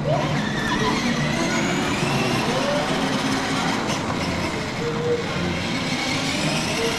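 Children's battery-powered ride-on toy jeep driving across a tiled floor: a steady rolling rumble of its hard plastic wheels, with a faint rising whine about a second in.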